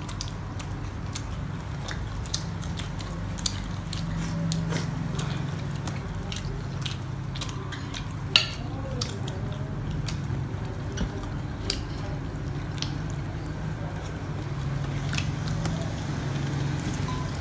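People eating at a table: chewing and mouth sounds with many small clicks from forks and dishes, and one sharper click about eight seconds in, over a steady low hum.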